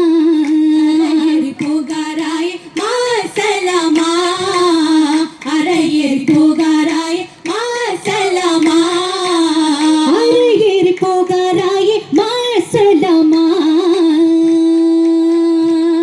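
Women singing a Mappila Oppana song in sung phrases, ending on a long held note near the end.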